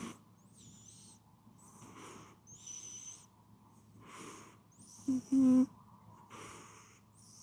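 A sleeping cat snoring: soft breaths about every second, each with a high whistle through the nose, and a much louder, pitched snore, broken in two, about five seconds in.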